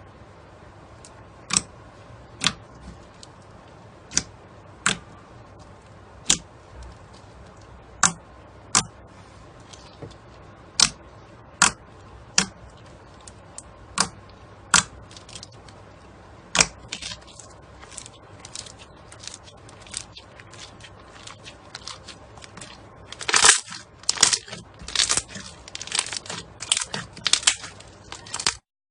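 Slime being pressed and poked by hand, giving sharp clicking pops about once a second. The pops turn into quicker crackling and then louder, denser crackling near the end before cutting off suddenly.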